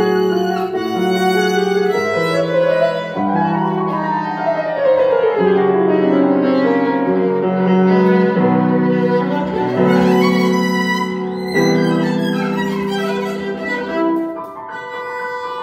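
Violin and grand piano playing together: sustained bowed violin notes over piano chords, with a sweeping run that climbs and then falls in the middle, growing softer near the end.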